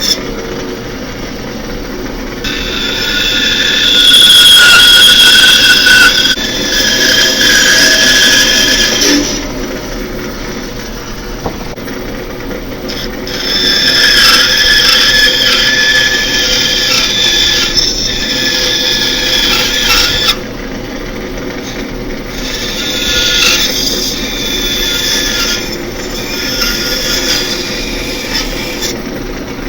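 Bandsaw running steadily while its blade cuts relief cuts into a wooden spoon blank. There are three long passes, each raising a loud, high-pitched cutting whine over the motor's hum, with quieter running in between.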